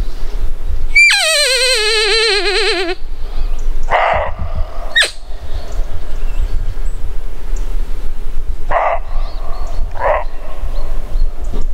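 Roe deer barking: three short hoarse barks, the first about four seconds in and the last two close together near the end. Before them comes a long wavering cry that falls in pitch, and a brief rising squeak sits between the first two barks.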